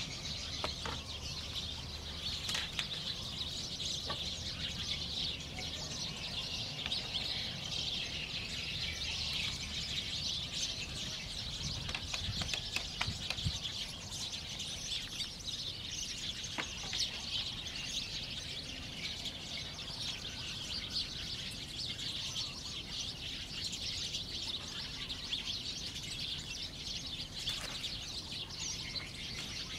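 Steady high-pitched outdoor wildlife chorus with birds chirping, and a few sharp knocks of bamboo poles being handled and fitted into a wall.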